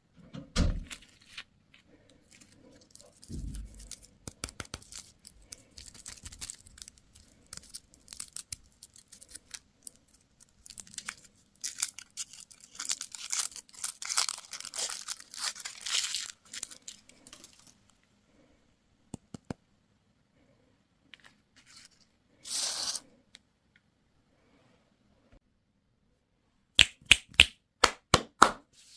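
Candy and toy packaging being torn open and crinkled by hand, in uneven stretches with scattered clicks and taps. The longest, densest run of tearing comes in the middle, and a quick run of sharp clicks comes near the end.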